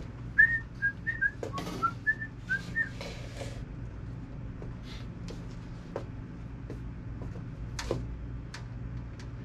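A person whistling a quick run of about ten short notes in the first three seconds, then a few scattered clicks and small knocks over a steady low hum.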